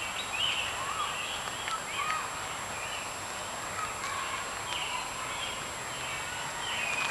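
Several birds calling and singing in woodland: short whistled chirps and slurred notes, scattered and overlapping throughout. Faint occasional footsteps on a dirt path.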